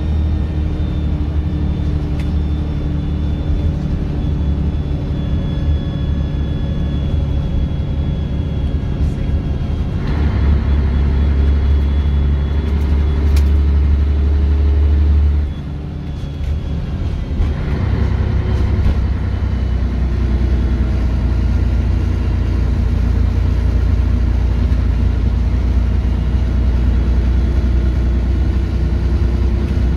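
Scania N113DRB double-decker bus's engine and drivetrain heard from inside the bus while it drives along, a steady low hum. About ten seconds in the engine pulls harder. It eases off briefly around fifteen seconds in, then pulls strongly again.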